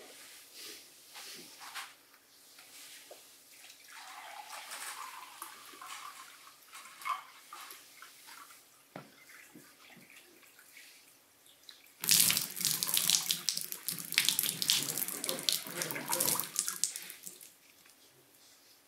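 Water poured from a glass jug into a drinking glass. A quieter pour starts about four seconds in, and a much louder pour runs for about five seconds from twelve seconds in.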